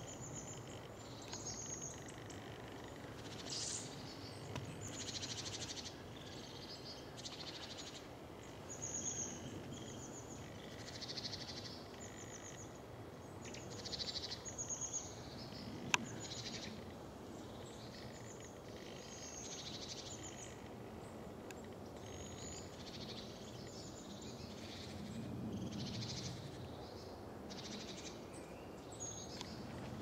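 Small songbirds calling in trees: short high chirps and trills come again and again, some overlapping. About halfway through there is a single sharp click.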